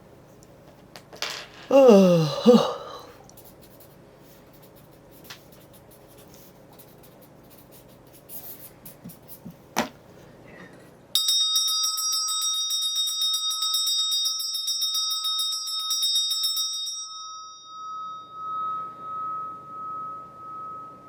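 A Korean shaman's ritual bells shaken rapidly in a dense jingle that starts suddenly about halfway through and stops after about six seconds, leaving one ringing tone that fades with a slow, pulsing waver. Earlier, a brief voice sound falls in pitch, and a few light clicks come shortly before the bells.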